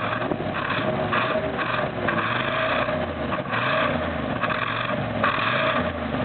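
1970 Chevelle's LS5 454 big-block V8 running in neutral and being revved in repeated blips, about one a second.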